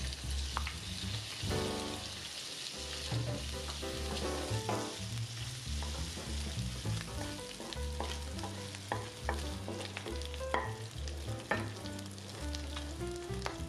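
Sliced pork frying in hot oil with garlic and chilies in a nonstick wok, sizzling steadily while a wooden spatula stirs and scrapes it, with scattered short knocks and scrapes against the pan.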